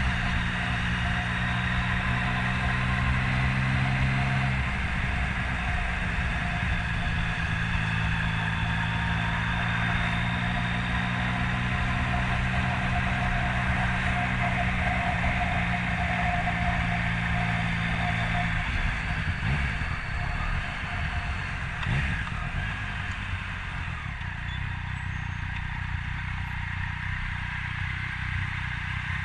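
Motorcycle engine running at a steady speed while riding, with road and wind noise; the engine note changes about two-thirds of the way through.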